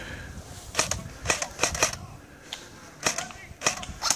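Airsoft rifles firing single shots: about seven sharp cracks at uneven intervals.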